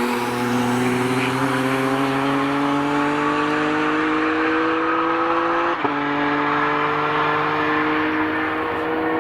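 BMW E46 M3 track car accelerating hard, its engine note climbing steadily in pitch, with one quick upshift about six seconds in before it climbs again.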